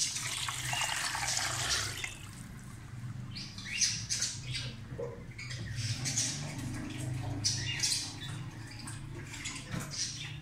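Water pouring in a steady stream into an aluminium pressure cooker over beef trotters for about the first two seconds, then shorter, scattered splashing and clattering noises over a low steady hum.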